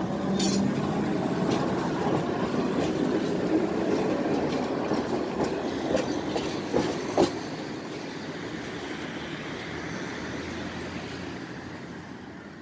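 Tatra T6B5 tram pulling away from the stop alongside, its wheels rumbling on the rails with a few sharp clicks over rail joints in the middle. The running sound then fades steadily as it moves off down the line.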